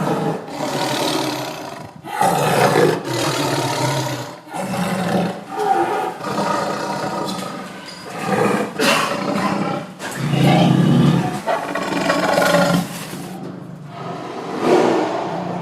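Lion roaring again and again, a run of loud roars following one another every second or two with only short dips between them.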